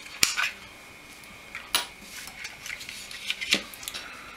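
Small plastic clicks and light clatter as the snap-fit body shell of a TT-scale model train car is unclipped from its chassis and lifted off. There are a handful of sharp clicks: one just after the start, one at about two seconds, and one at about three and a half seconds.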